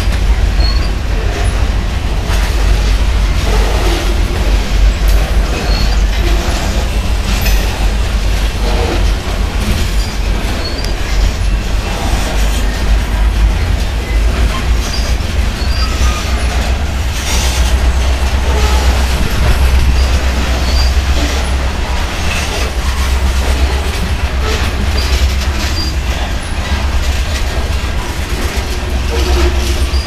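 Loaded grain train's covered hopper cars rolling past: a steady rumble of steel wheels on rail, with clicking as the wheels pass over the rail joints.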